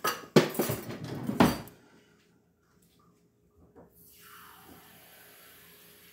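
Metal kitchen utensils clattering in a drawer as it is rummaged and pushed shut, with a few sharp knocks in the first two seconds. About four seconds in, a faint steady hiss begins.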